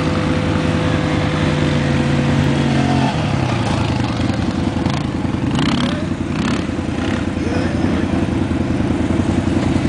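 TGB quad bike's engine running. About three seconds in its steady note drops, and it then runs rougher and less evenly.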